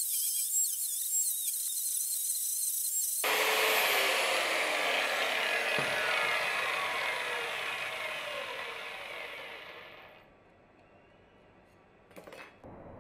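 Handheld angle grinder cutting metal with a high, wavering whine; about three seconds in the sound changes abruptly and the disc then winds down, its pitch falling steadily until it stops about ten seconds in. A short metallic clatter follows near the end.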